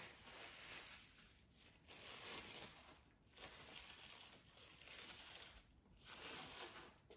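Faint crinkling and rustling of plastic cling film being peeled off a loaf tin of frozen ice cream, in several short spells.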